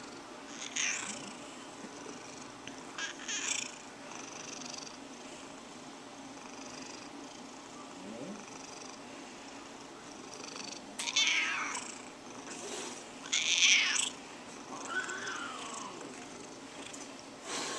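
Domestic cat purring steadily and breaking into about six short, annoyed cries and grumbles, the loudest about two-thirds of the way through. She is protesting at having her back scratched.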